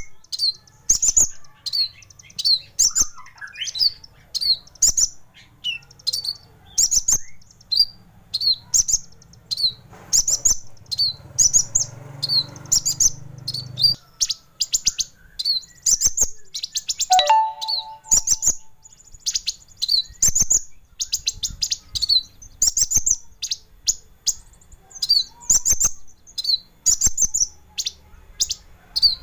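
Kolibri ninja sunbird singing: a fast, continuous run of sharp, very high-pitched chirps and short whistled notes, several a second.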